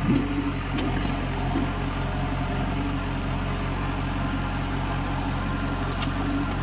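Diesel engine of a backhoe loader or tractor running steadily with an even fast pulsing, with a short knock right at the start and a few light clicks near the end.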